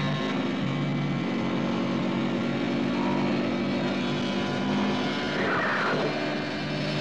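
Motorcycle engines running steadily at speed. About five and a half seconds in there is a brief falling whine.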